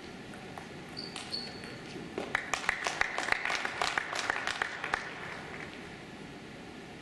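A small audience clapping for about three seconds, starting about two seconds in, applauding a point just won in a table tennis match. A brief high squeak comes about a second in.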